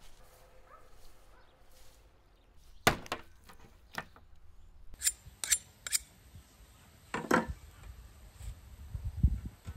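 Knocks and thuds of a large beluga sturgeon being set down and handled on a wooden tabletop: about six sharp knocks between three and seven and a half seconds in, then low thumps near the end.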